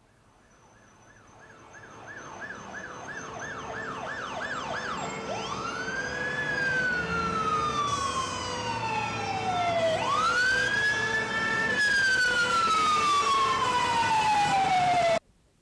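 Fire engine siren approaching and growing louder over traffic noise: first a fast yelp, warbling about two to three times a second, then two long wails, each rising quickly and falling slowly. It cuts off abruptly near the end.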